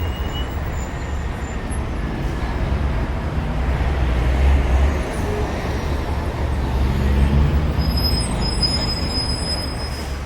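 Heavy, steady low rumble of urban vehicle traffic, swelling and easing as vehicles pass. A brief run of thin high chirping comes in near the end.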